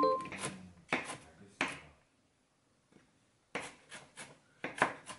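Kitchen knife chopping onion on a wooden cutting board: a few separate chops, a pause, then a quicker, uneven run of chops.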